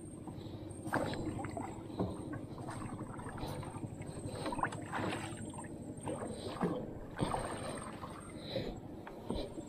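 Water splashing and sloshing against the hull of a small wooden boat, with irregular splashes about once a second over a steady low rumble.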